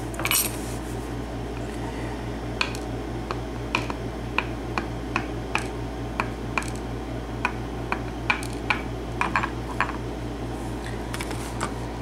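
Light metallic clicks and taps, scattered irregularly, as a padlock plug, its pins and small tools are handled on a pin tray, over a steady low hum.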